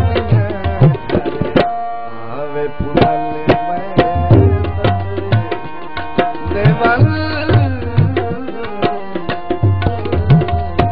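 Punjabi folk music between sung lines: tabla playing a busy rhythm, with gliding bass drum strokes, under steady held melody notes.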